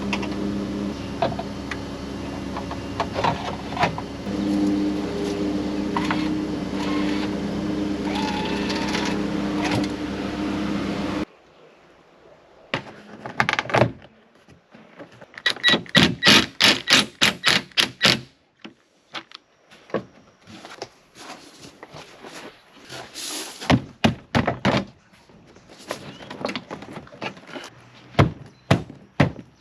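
A Chrysler Sebring convertible running on a test drive: a steady engine hum with road noise, which cuts off abruptly about eleven seconds in. After that comes a long series of sharp knocks, thunks and clicks, some in quick rattling runs.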